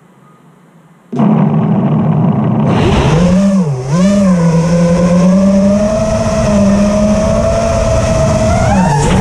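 Five-inch FPV quadcopter's brushless motors and tri-blade propellers spinning up sharply about a second in, then a loud whine as it takes off and flies. The pitch dips and wobbles briefly, holds steady, and rises near the end. It is heard close up through a camera mounted on the quad.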